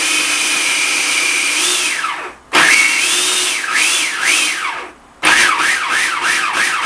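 Food processor motor blending a thick pesto of nuts, basil and spinach in pulses. Its whine falls as it coasts to a stop about two seconds in and again near five seconds, restarting each time. After each restart the pitch rises and dips rhythmically as the blade catches the mixture.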